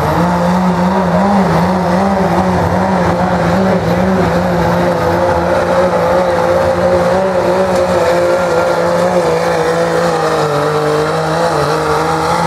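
Dodge Ram pickup's Cummins turbo-diesel engine under full load, pulling a truck-pull sled. It runs hard at a high, steady pitch that wavers, then sinks over the last few seconds as the sled's weight drags the truck down.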